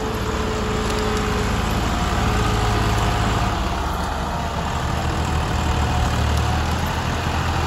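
Diesel engines of two Massey Ferguson tractors, an MF 260 and an MF 375, running together with a steady low rumble.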